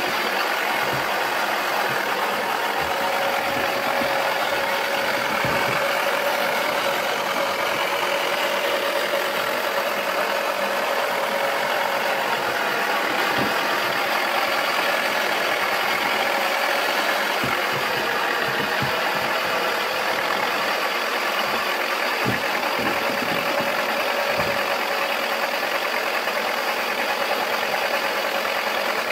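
Mattel Wacky Washer toy washing machine running: its small electric motor whirs steadily as the drum spins the toy clothes, with a faint steady hum and occasional soft knocks.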